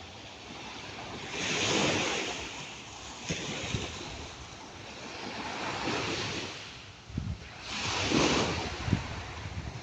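Ocean surf: waves breaking and washing in, the rushing noise swelling to three louder surges about two, six and eight seconds in. Wind buffets the microphone with a few low knocks.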